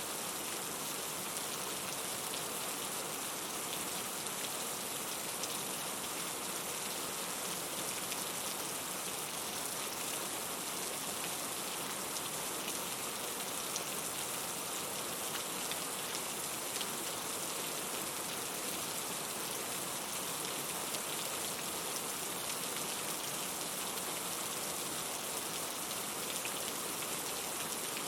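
Steady rainfall: an even hiss of rain with many fine drops pattering on a surface, no change in strength.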